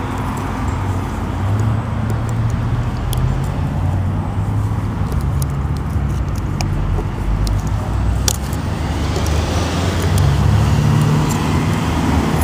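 A steady low rumble of vehicle traffic, growing a little louder near the end. Scattered light metallic clicks and taps from small parts of a gate lock's cylinder being worked by hand, one sharper click about eight seconds in.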